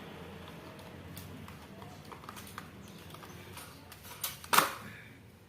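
Plastic parts of an electric fan being handled as it is taken apart: rubbing and small clicks, then a sharp knock about four and a half seconds in.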